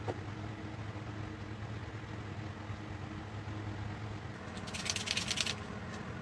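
Steady low background hum, and about five seconds in a brief, rapid clatter of thin laser-cut wooden pieces knocking together as they are handled.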